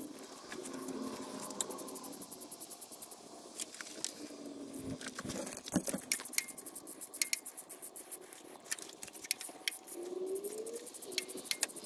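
Hand tools working on engine parts: scattered metallic clicks and clinks with short scraping sounds, a cluster of sharper clicks about halfway through and again near the end.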